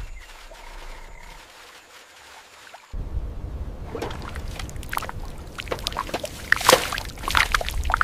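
Water pouring and dripping off a rusted tank hull into swamp water. It is fairly quiet at first, then from about three seconds in comes a steady splashing wash with many sharp drips.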